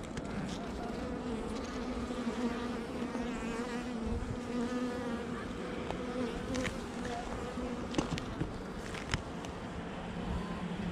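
Honeybees buzzing around an open hive, a steady hum for most of the time, with a few sharp clicks about eight and nine seconds in.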